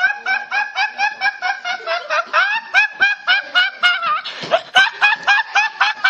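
A teenage boy laughing uncontrollably in a fast, high-pitched, squeaky giggle, about five short rising 'hee' sounds a second, with one quick gasp for breath about four and a half seconds in.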